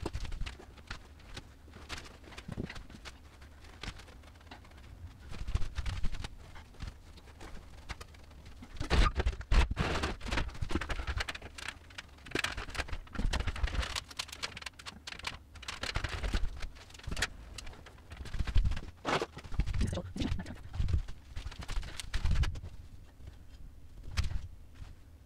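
Irregular knocks, thumps and clatter of building work as wood-fibre insulation boards are fitted to timber wall framing. The sounds come in quick clusters separated by quieter gaps.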